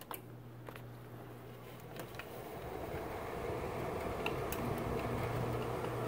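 Friedrich Kuhl 14,000 BTU window air conditioner being switched on: a few sharp clicks as its control buttons are pressed, then its blower spins up from about two seconds in, the rush of air growing steadily louder over a low steady hum.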